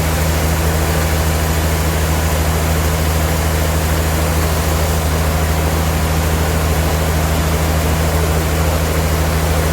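Sawmill machinery running steadily: a constant low hum over an even noise, unchanging throughout.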